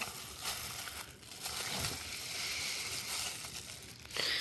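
Packaging crinkling and rustling as it is handled: a few light clicks at first, then a steady crinkle for about two seconds that fades near the end.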